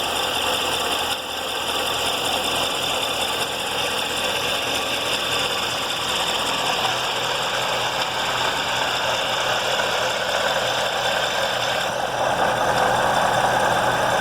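Chevrolet C7 Corvette Z06's supercharged LT4 V8 engine running with an unusual tapping/knocking from inside the motor, like a loose marble. It grows a little louder near the end.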